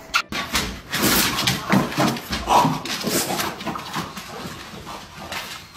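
A dog whimpering in short bursts, among a busy run of clicks and knocks.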